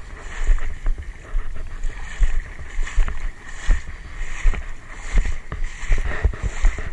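Shallow seawater sloshing and splashing around a wading angler's legs, with irregular wind rumble on the microphone.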